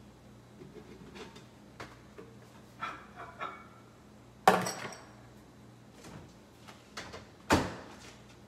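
Handling at a kitchen microwave: small clatters, then a sharp clack with a brief ring about halfway as a plate knocks, and a louder thud near the end as the microwave door is pushed shut.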